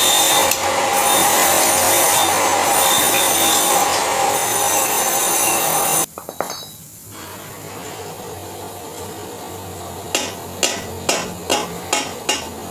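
A gas welding torch hisses steadily and loudly on a steel two-stroke exhaust expansion chamber, with a faint high whine, and cuts off about six seconds in. Near the end a wooden mallet strikes the steel pipe in a quick run of about seven sharp blows.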